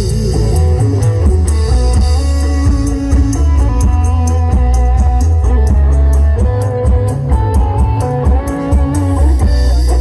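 Loud music played through a large stage PA sound system of stacked speakers, heavy in bass, with a sustained melody over a steady beat, heard during a mixing test of the system.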